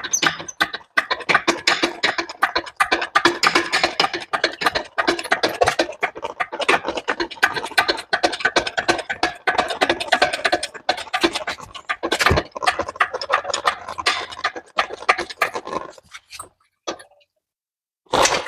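A large dog panting rapidly close to the microphone, with one heavy clunk about twelve seconds in; the panting stops for a couple of seconds near the end.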